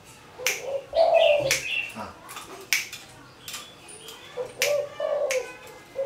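Repeated finger snaps, about one a second, made to coax a caged spotted dove (tekukur) into cooing. Between them come short low vocal sounds, the loudest about a second in and again near the end.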